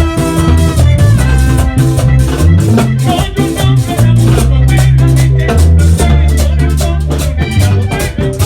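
Vallenato music: a button accordion playing a melodic run over held bass notes and a steady percussion rhythm.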